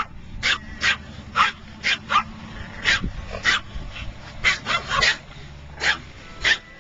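Pomeranian barking in short, sharp, high-pitched yaps, about a dozen at an irregular pace, some in quick pairs and threes.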